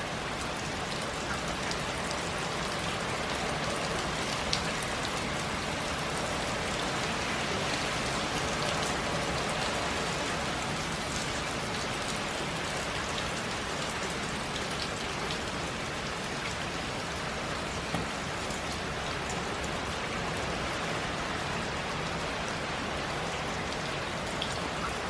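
Heavy hurricane rain falling steadily, with a couple of faint ticks.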